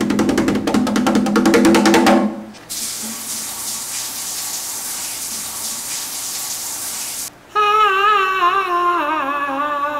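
Fast hand drumming on a Congolese rain-dance drum for about two seconds. Then a steady hiss of falling water for about four and a half seconds, which cuts off suddenly. Music with a wavering melody comes in near the end.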